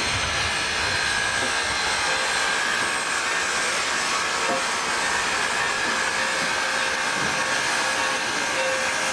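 Large steam locomotive standing under steam, giving off a steady hiss with a faint thin whine running through it.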